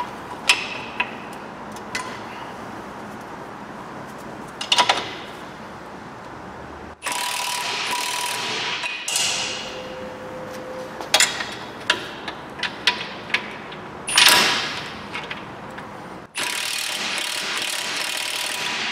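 Cordless ratchet running in two bursts, one of about two seconds and one of about two and a half seconds, tightening the new track control arm's bolts. Scattered sharp ratchet clicks and metal tool taps fall between the bursts. The arm is being done up with the suspension jacked to its on-road ride height.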